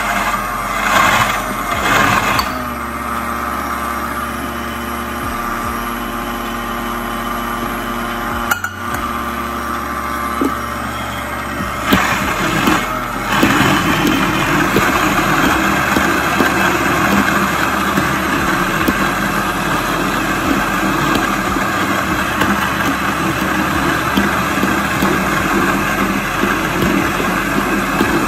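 Countertop blender motor running at speed, blending raw chopped salad vegetables and water into a soup. The sound grows fuller and louder from about thirteen seconds in, when the tamper pushes the vegetables down into the blades.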